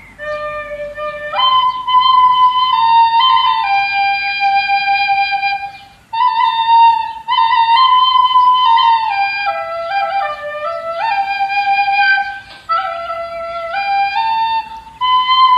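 Recorder playing a slow solo melody, one held note stepping to the next, with a short break for breath about six seconds in and another near the end.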